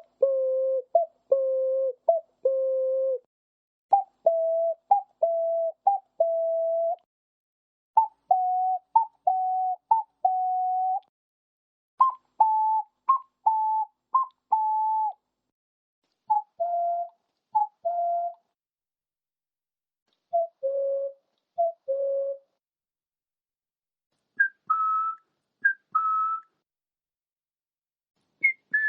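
Ocarina imitating a cuckoo clock's call: a short higher note dropping to a longer lower one, repeated two to four times in each group. Several groups are separated by short pauses, each at its own pitch and rising higher toward the end.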